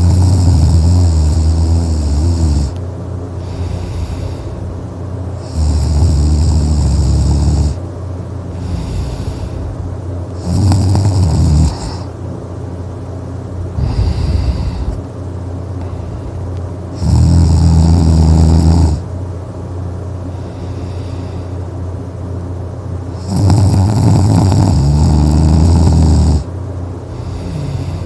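A person snoring: five loud, low snores, one every five to six seconds, with softer breaths between them.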